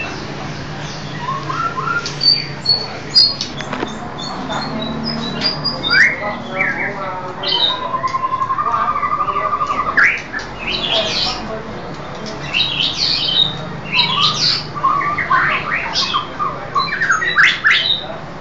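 Caged oriental magpie-robin singing a varied run of short sharp whistles and harsh squawky notes, with a rapid low rattle lasting about two seconds around the middle.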